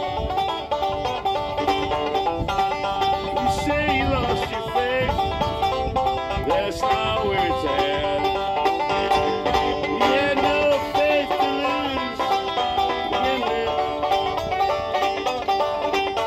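Five-string-style banjo played solo, picked and strummed in a continuous bluegrass-style tune.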